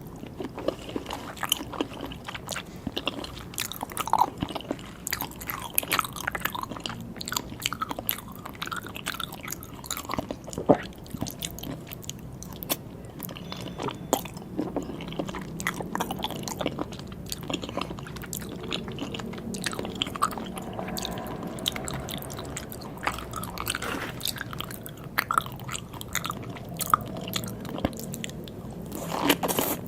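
Close-miked chewing and biting of sea grapes (Caulerpa seaweed) and salmon sashimi, with a dense run of small sharp wet clicks and pops.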